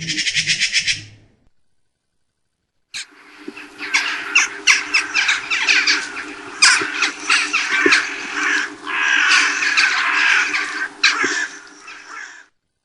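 A short rapid trill, then after a brief silence a long stretch of harsh, scratchy bird calls with many sharp clicks, over a low steady hum.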